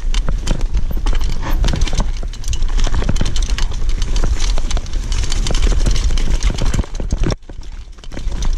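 Mountain bike ridden fast down a rocky, rooty trail: a constant irregular clatter of tyres, chain and suspension over rocks and roots, over a steady low rumble on the microphone. Near the end the clatter drops off for under a second, then picks up again.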